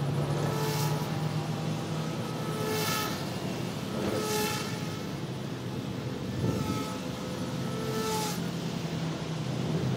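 Flywing FW200 direct-drive electric RC helicopter in flight, its motor and rotor making a steady buzzing drone whose pitch shifts slightly as it manoeuvres, with a few brief rushing swells of noise.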